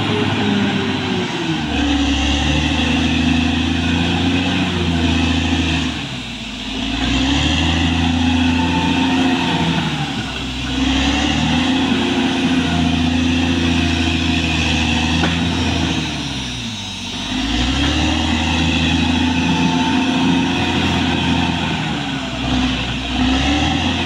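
Caterpillar D6R XL bulldozer's diesel engine running hard as the dozer works its blade against a large tree. The engine note sags and recovers three times.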